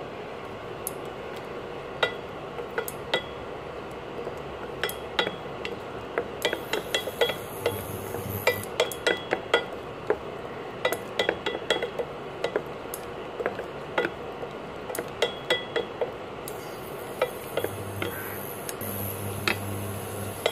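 Wooden spatula stirring and scraping in an open pressure cooker, knocking against the metal pan in irregular sharp clinks that come thickest in the middle, over a steady low hiss from the simmering pan.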